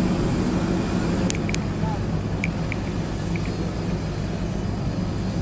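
Steady low drone of aircraft on an airport apron, with people talking and two sharp clicks about a second and a half in.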